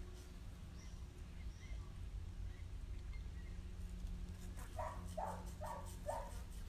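An animal gives four short calls in quick succession, about a second in all, near the end, over a steady low hum with faint light clicks.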